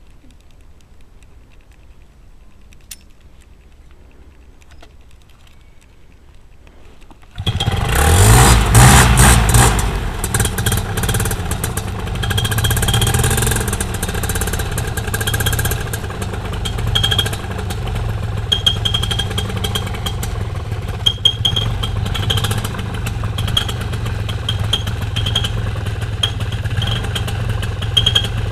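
A powered paraglider's backpack paramotor engine starts about seven seconds in, revs up briefly with a rising pitch, then settles into steady running.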